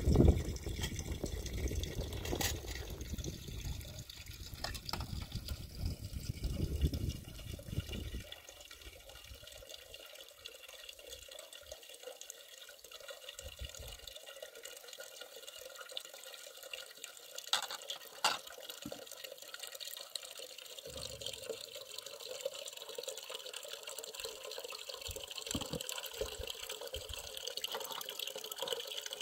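Water running from the tap of a large metal water tank into a metal pot as dishes are washed under it, a steady splashing hiss with a few clicks about halfway through. For the first several seconds a low rumbling noise lies over it.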